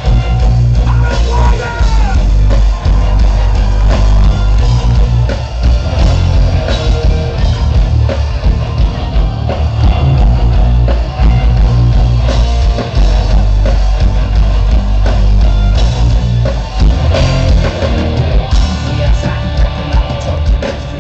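Loud live rock music from a German folk-metal band on stage, played without a break and heard from within the crowd, with a heavy low end.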